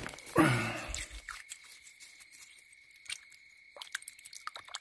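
Water poured out to wash dirt off a freshly dug stone point: a brief splash about half a second in, followed by faint small clicks and scrapes.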